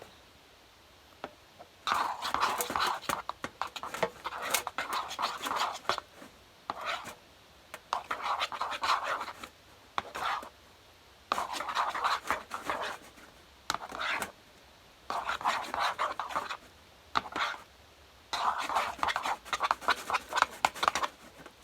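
A spoon stirring glue and slime activator in a bowl: repeated bouts of wet scraping and clicking, each lasting one to three seconds with short pauses between.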